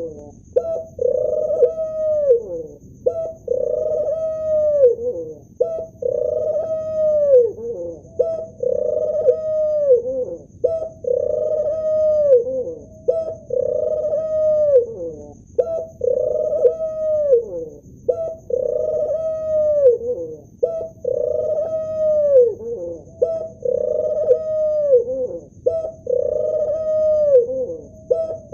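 Male ring-necked dove cooing over and over in an even rhythm, more than twenty coos in a row, each ending with a drop in pitch. A faint steady high whine runs underneath.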